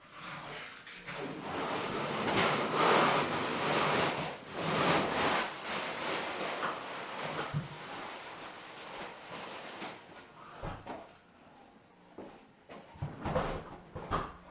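Scraping and rubbing from sectional garage door panels being handled, loudest over the first six seconds, then a few short knocks near the end.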